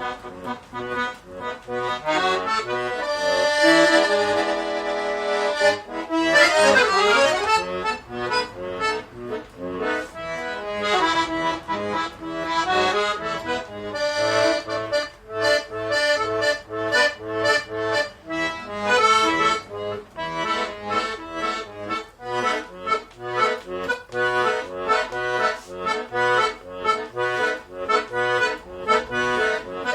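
Accordion (gaita) playing a tune. It opens with long held chords, runs quickly through a string of notes about six seconds in, then settles into a bouncing rhythm of short bass notes and chords.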